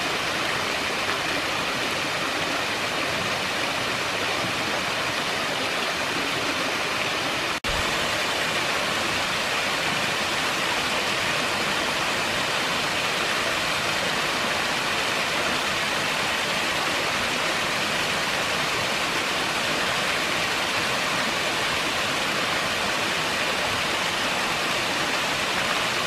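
Small waterfall pouring in two streams over a rock ledge into a pool: a steady rush of falling water, broken once by a split-second dropout about eight seconds in.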